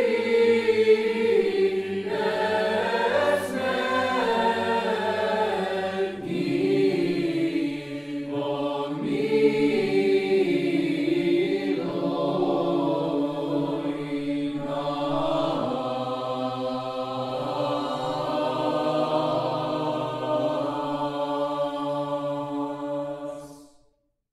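Orthodox church choir singing an unaccompanied chant in several voices, with long held notes. The singing cuts off shortly before the end.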